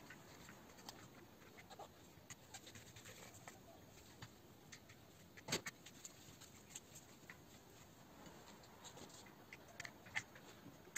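Faint, scattered small clicks and taps of plastic and metal RC buggy parts being handled and fitted onto the chassis, with one sharper click about halfway through.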